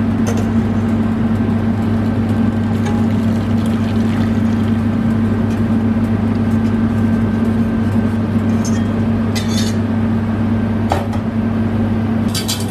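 Thin custard mixture of milk, sugar and egg yolks poured from a steel mixing bowl into a stainless saucepan, then stirred with a wire whisk, with a few light clicks near the end, all over a loud, steady mechanical hum.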